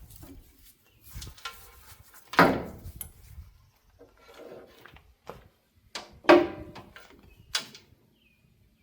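A run of separate sharp knocks and clatters from hand tools and parts being handled, the two loudest about two and a half and six seconds in, each with a short ringing tail.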